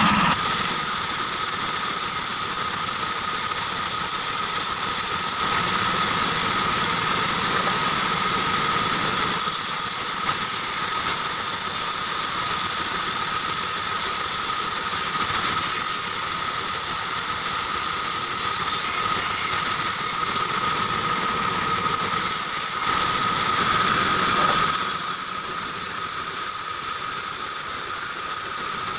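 Belt-driven vertical band saw running, its blade cutting lengthwise through an old weathered board, with a steady high whine; the sound grows louder for a couple of seconds near the end.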